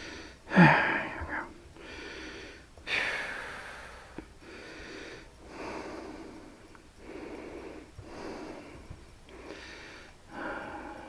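A man's heavy breathing close to a headset microphone while he works. There is a sharp snort-like sound about half a second in, a loud exhale near three seconds, then steady breaths about once a second.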